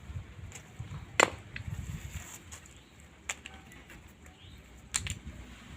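Three sharp taps roughly two seconds apart, the first the loudest, with a few fainter ticks between them over a low background rumble.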